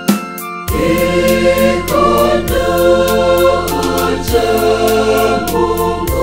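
Gospel choir singing over a band backing track with bass and a steady beat. The backing drops out for a moment at the start, then comes back in full.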